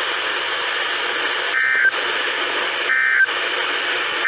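NOAA Weather Radio received with a steady static hiss. About a second and a half in come two short digital data bursts, about 1.3 s apart, and a third begins at the very end. They are the SAME end-of-message bursts that close a weather radio test.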